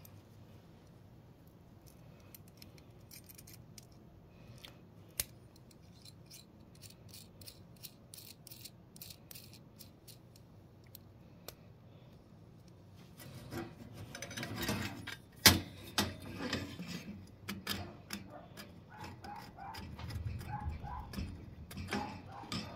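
Small metal clicks and light rattles as a replacement thermocouple's copper lead and brass fittings are handled, then louder knocks and rubbing about halfway through as the thermocouple is pushed into a gas boiler's pilot burner bracket, with one sharp knock standing out.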